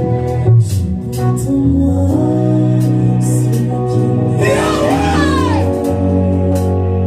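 Gospel worship music with singing over sustained keyboard and bass notes and regular cymbal strikes.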